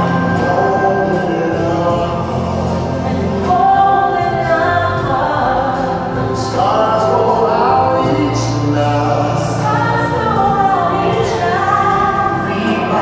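Gospel song with sung lead vocals and backing voices over instrumental accompaniment, played back as music for a dance.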